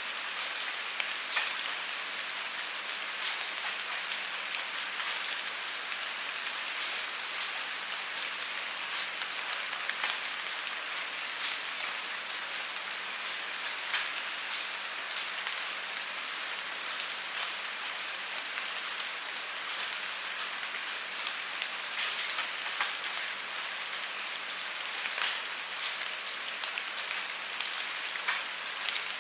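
Steady rain falling on a surface: an even hiss with scattered individual drop ticks.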